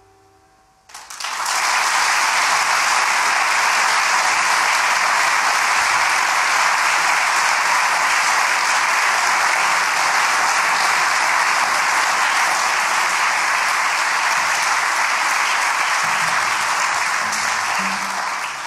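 The last held note of the music dies away, then a concert audience applauds steadily for about seventeen seconds, tapering off near the end.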